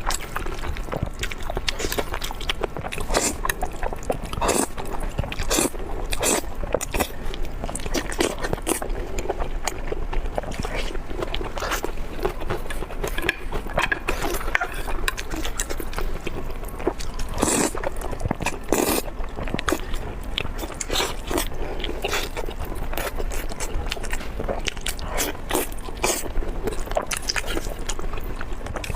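Close-up eating sounds: a person biting and chewing food, with frequent irregular crunches, smacks and scrapes.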